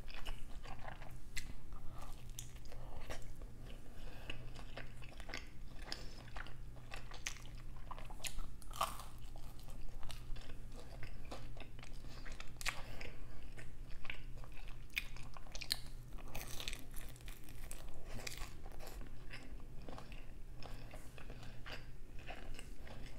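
Close-miked chewing and biting of a slice of shrimp and cheese pizza, with many small sharp crunches and mouth clicks over a steady low hum.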